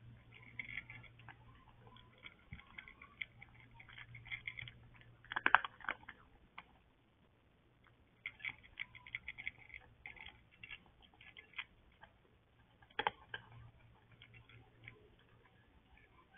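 A cat feeding with its head down in a bowl: bursts of rapid, irregular small clicks from its mouth and the bowl, with a louder click about five and a half seconds in and another about thirteen seconds in. A faint steady low hum runs underneath.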